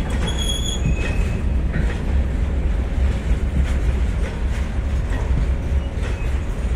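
Loaded ballast hopper wagons of a freight train rolling past: a steady rumble of steel wheels on rail with light clacks. A brief high squeal sounds about half a second in.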